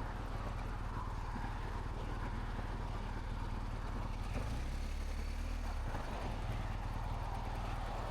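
Wind noise heard at the ear inside a Sedici Sistema II modular helmet at motorcycle highway speed: a steady rushing hiss over a deep, constant rumble.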